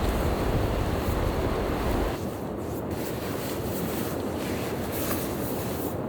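Steady wind noise in a snowstorm, with a low rumble that drops away suddenly about two seconds in.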